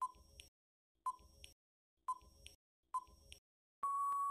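Countdown timer sound effect: four short beeps about a second apart, each followed by a fainter tick, then a longer steady time-out beep lasting a little under a second near the end.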